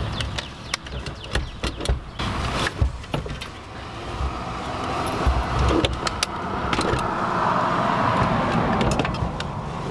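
Knocks, clunks and rattles of a squarebody Suburban's steering column and column shifter as it is twisted and pulled loose from the dash. In the second half a steadier noise swells for several seconds and then fades.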